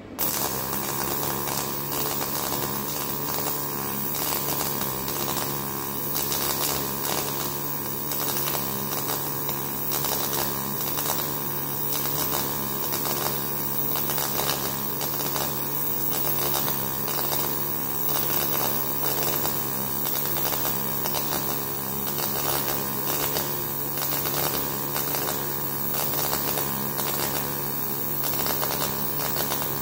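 MAG welding arc striking at the very start, then running with a steady, dense crackling buzz as a vertical-up weld is laid on steel.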